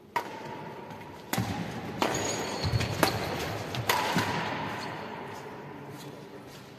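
Badminton rackets striking a shuttlecock in a rally: about five sharp cracks in the first four seconds, each ringing on in the hall, with low thuds of players' feet on the wooden court among them, then fading.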